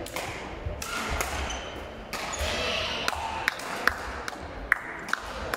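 Badminton play on an indoor court: a series of sharp clicks of racket hits and shoes on the hall floor, with short high squeaks in the second half, echoing in the large hall.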